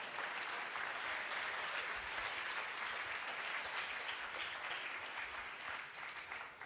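Lecture-hall audience of students applauding: a dense, steady patter of many hands clapping that thins out near the end.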